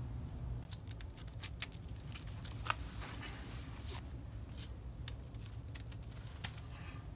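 Thin plastic shopping bag crinkling and rustling in short crackles as a kitten paws and noses at it, over a steady low hum.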